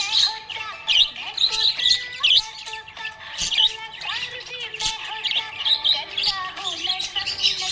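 Several budgerigars chirping and warbling together in a continuous, busy chatter: quick sharp chirps overlap with lower wavering warble notes.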